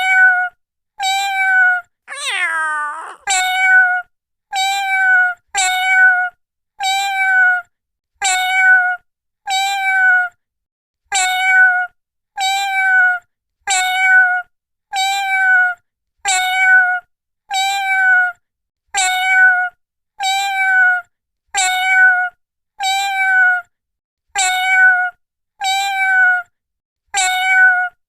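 A cat meowing over and over: the same short, high meow repeats about once every 1.2 seconds, with silence between. About two seconds in, one longer meow slides down in pitch.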